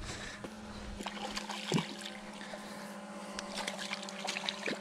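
Steady hum of a hovering camera drone's propellers, with faint scattered clicks and a soft knock.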